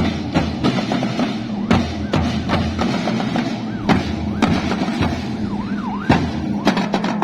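Marching band drum corps playing, with quick drum hits over a steady low drone. A few rising and falling whistle-like tones sound over it about five to six seconds in.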